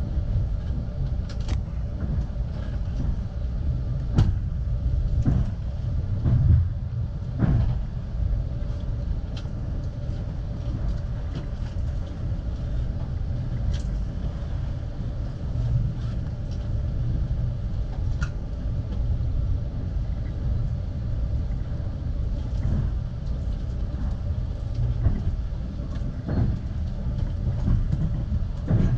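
Amtrak Cascades passenger train running on the rails, heard from aboard: a steady low rumble with scattered irregular clicks and knocks from the wheels and car.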